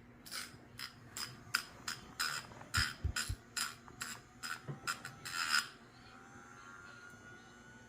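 Dog's nails being filed: a run of short rasping strokes, about three a second, that stop about five and a half seconds in.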